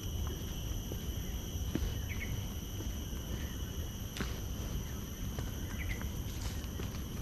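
Steady, high-pitched insect drone over a low steady rumble, with scattered light footstep clicks on the garden path and a couple of short bird chirps.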